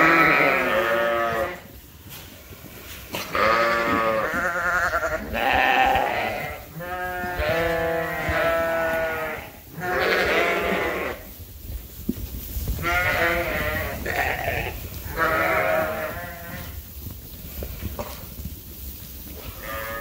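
Young sheep bleating excitedly in a barn, call after call with a wavering pitch, a new bleat every second or two and sometimes overlapping.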